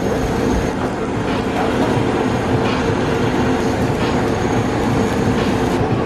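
Steady rumbling noise of a working restaurant kitchen with a constant hum running under it, broken by a few faint clinks.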